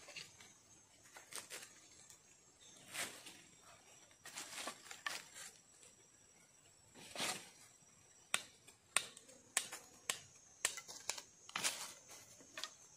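Rustling of dry leaves and sticks being handled, then a run of about seven sharp wooden knocks over roughly four seconds as an upright stake is tapped into the ground with a piece of wood.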